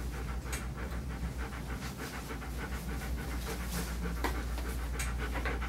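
German Shepherd panting fast and steadily, with a few short clicks along the way.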